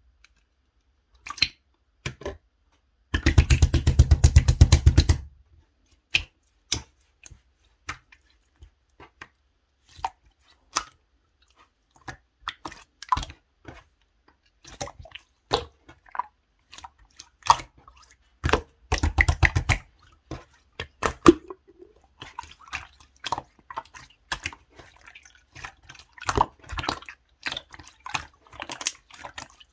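Clear orange slime worked by hand: wet sticky clicks and pops as it is pressed, stretched and folded. Twice there is a run of quick, evenly spaced popping; the first, a few seconds in, is the loudest.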